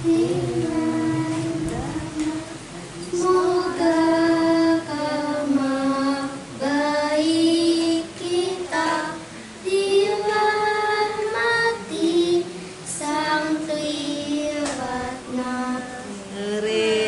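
A young girl singing a slow song into a handheld microphone, long held notes in phrases with short breaths between them.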